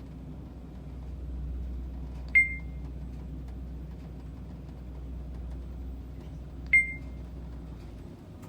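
Schindler 3300 machine-room-less traction elevator car travelling with a steady low hum, with two short high chimes about four seconds apart; the hum drops away near the end as the car comes to a stop.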